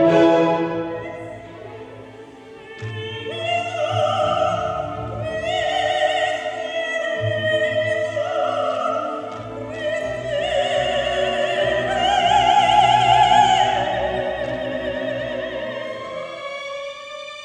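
Solo soprano singing long, sustained lines with wide operatic vibrato over a string orchestra. The orchestra's phrase fades in the first two seconds, the voice enters about three seconds in, and it fades near the end.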